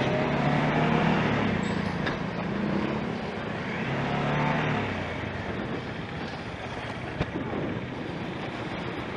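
Bajaj Dominar 400 motorcycle engine running under way, over a steady haze of road and wind noise; its pitch steps up and down a few times.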